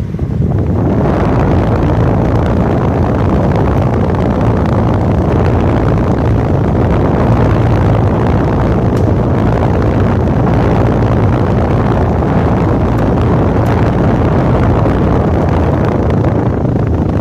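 Hatari 16-inch digital table fan running, its airflow blowing straight onto the microphone as a loud, steady rumble and rush of wind. It swells within the first second, then holds level.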